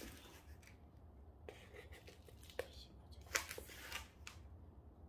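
Coarse, gritty potting mix, mostly decomposed-granite grit, rustling and scraping faintly as it is scooped and pressed by hand into a plastic pot, with scattered small clicks and a louder patch of scraping about three and a half seconds in.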